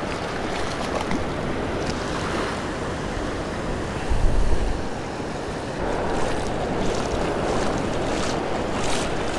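Ocean surf washing in shallow water, with wind on the microphone and a short low rumble about four seconds in.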